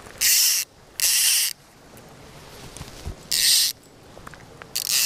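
Fly reel's click-pawl ratchet buzzing as line is pulled off it in four short pulls, each about half a second long.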